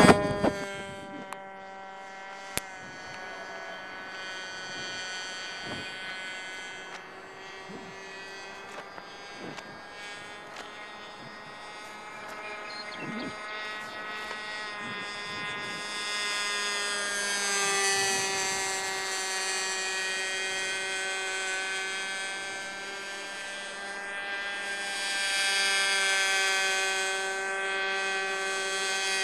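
Distant radio-controlled airplane motor buzzing steadily, swelling and fading as the plane circles, loudest twice in the second half. Two sharp clicks come in the first few seconds.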